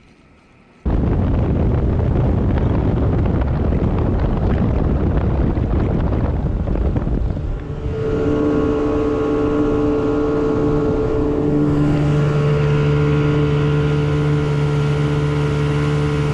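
Wooldridge jet boat running under way: wind buffeting the microphone and rushing noise cut in suddenly about a second in. From about eight seconds a steady engine hum comes through, and a deeper tone joins it a few seconds later.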